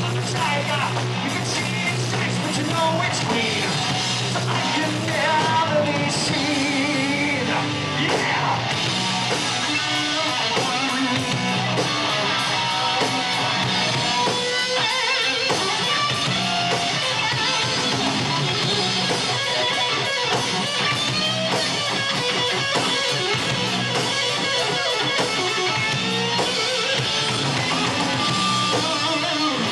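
Heavy metal band playing live: distorted electric guitars and a drum kit, with a singer's vocals, at a steady loud level.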